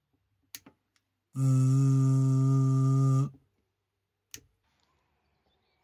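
A steady, loud buzzing tone lasting about two seconds, with a sharp click before it and another after it.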